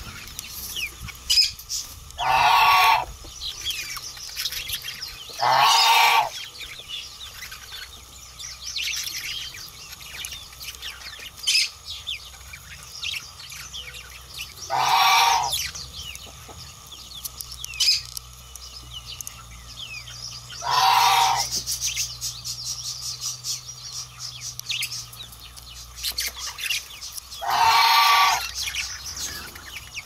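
Budgerigar chicks giving raspy food-begging calls as the male budgie feeds them, five loud calls of about a second each, with soft chirps and clicks in between.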